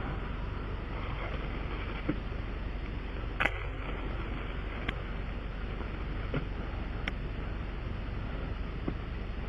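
Light clicks and clacks of tyre-repair hand tools being handled during a tyre plug repair, a handful of them spread out, the sharpest about three and a half seconds in, over a steady noise bed.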